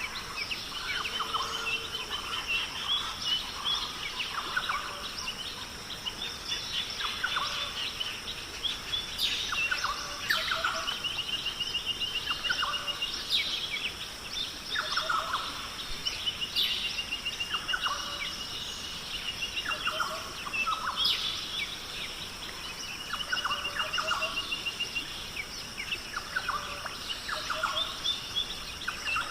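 Several birds calling and singing over one another, with fast trilled songs and short sharp calls, over a steady high hiss.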